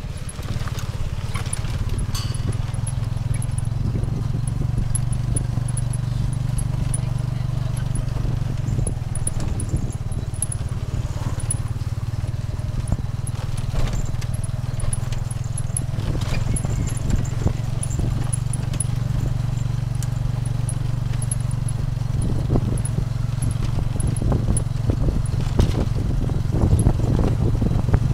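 Motorbike-drawn tuk-tuk running along a rough road, heard from the passenger carriage: a steady engine hum with frequent rattles and knocks from the carriage, which grow busier near the end.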